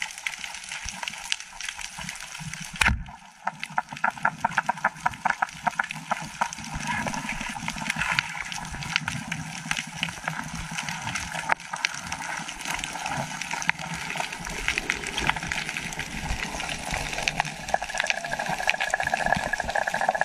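Underwater recording: a sharp speargun shot about three seconds in, then a run of rapid clicking. A steady hiss and gurgle of water runs under it all.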